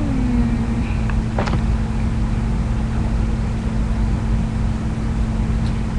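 Steady low background hum, with a short falling tone at the very start and a brief high squeak about a second and a half in.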